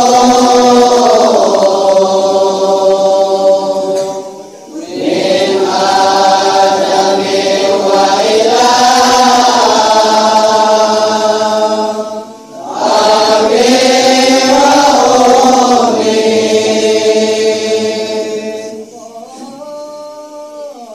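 A voice chanting a rawi passage of Arabic Maulid text in long, melismatic phrases. It breaks briefly twice, about four and twelve seconds in, and gets quieter near the end.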